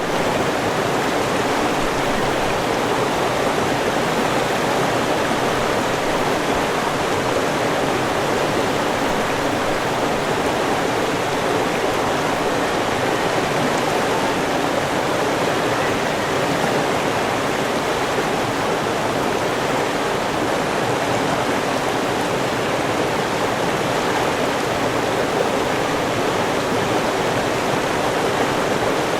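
River water rushing steadily, an even full rush with no breaks.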